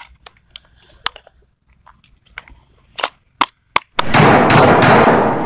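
Scattered small plastic clicks and taps of a hazard-flasher unit, its wiring plugs and packaging being handled. About four seconds in, a sudden loud rush of dense noise cuts in and keeps going.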